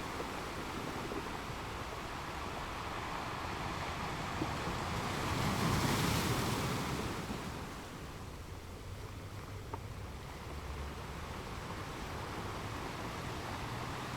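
Sea waves washing, with one wave surging louder about six seconds in before easing off.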